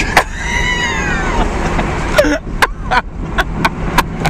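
A man's high-pitched, drawn-out cry over the steady wind and engine rumble of a moving vehicle. From about halfway in come a string of sharp knocks and thumps.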